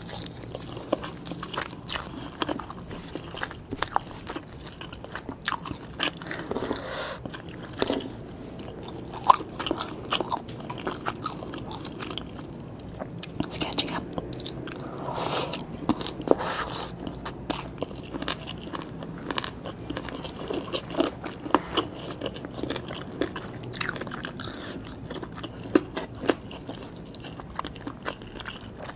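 Close-miked eating of fried chicken and green papaya salad: repeated bites and chewing, with frequent short crisp crunches scattered irregularly throughout.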